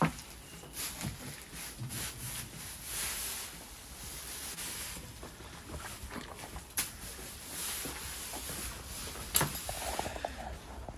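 Rustling of hay and straw as a Welsh section D cob moves about his stable and pulls at his hay net, with a couple of sharp knocks later on.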